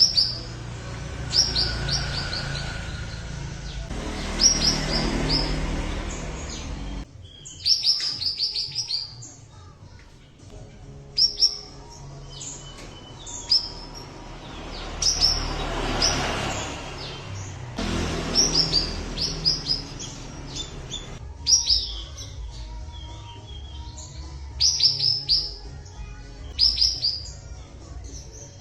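Cucak wilis songbird singing: short runs of four to six quick, high, falling notes, repeated every second or two. Behind it is a rushing background noise that swells and fades.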